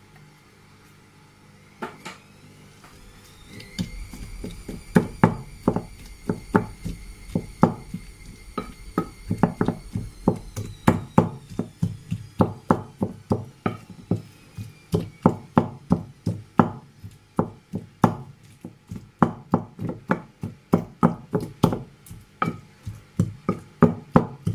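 A white pestle pounding soft avocado in a bowl, knocking against the bowl's bottom in a steady run of about two to three strikes a second. Under the first half a high whistle rises, holds and then slowly falls away.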